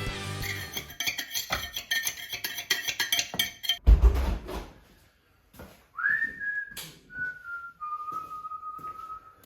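Intro rock music with guitar, ending with a low thump about four seconds in. Then a person whistling a few long held notes, each a little lower than the one before, with a few light clinks around it.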